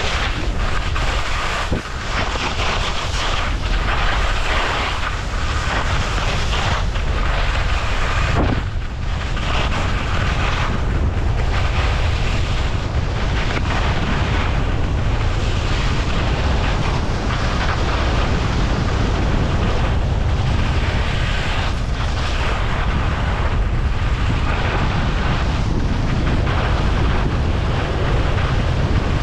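Wind rushing over the helmet camera's microphone at skiing speed. Over it, skis carve and scrape on packed groomed snow, with a hiss that swells and fades every second or two as the skier links turns.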